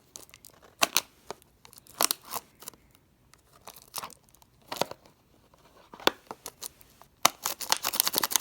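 Plastic trading-card pack wrapper crinkling and crackling in short bursts as it is pulled and pried at without tearing open, with a quick run of crackles near the end.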